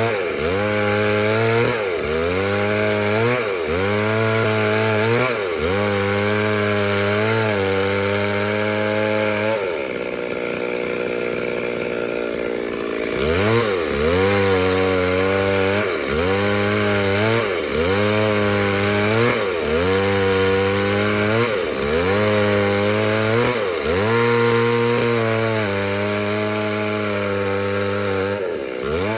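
Two-stroke chainsaw cutting into wood at high revs, its engine pitch dipping and climbing back about every two seconds as the chain bites in repeated strokes. A steadier stretch of a few seconds comes about a third of the way through.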